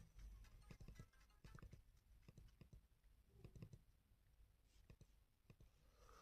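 Near silence, with faint scattered clicks.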